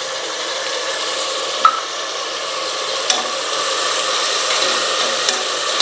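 Ginger-garlic paste sizzling in hot ghee and oil with fried onions in a steel pressure cooker, stirred with a metal spoon that clicks against the pan a few times.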